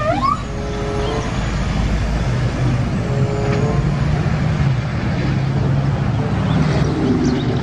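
Highway traffic noise from a loaded car-carrier semi-truck driving past: a steady engine drone under tyre and road noise.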